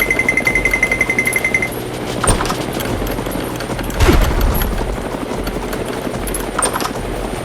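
A machine running with a fast, steady rattle. A rapid high beeping runs for the first couple of seconds, and sharp knocks come three times, the heaviest with a thud about four seconds in.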